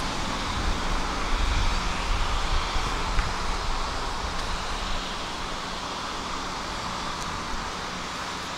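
Steady outdoor city background noise: a low rumble of distant traffic with a faint steady hum, easing slightly in the second half.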